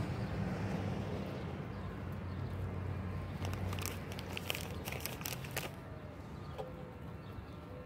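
Frozen corn-on-the-cob pieces being handled and set into a cast iron Dutch oven: a quick run of clicks in the middle, over a steady low background rumble.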